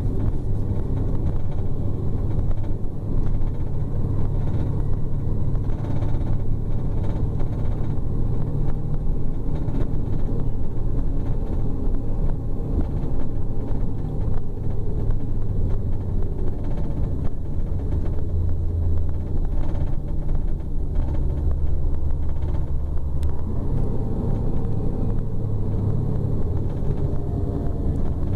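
Scania K410 double-deck coach's rear-mounted six-cylinder diesel engine running as the coach drives, a steady low drone, heard from inside the coach.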